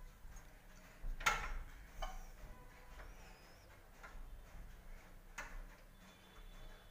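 A toddler's hand knocking on a wooden door: four short sharp knocks, spaced unevenly, the first the loudest.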